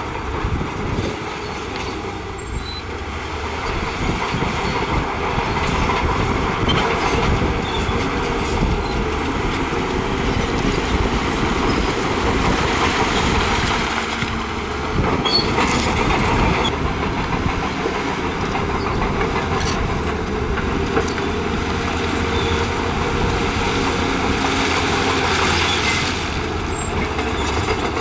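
Crawler bulldozer's diesel engine running steadily under load while its steel tracks clank and rattle, with a few sharper clanks along the way.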